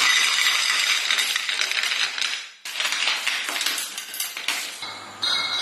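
Dishes and tableware clinking and clattering as food is set down on the table, with a brief sudden break about two and a half seconds in.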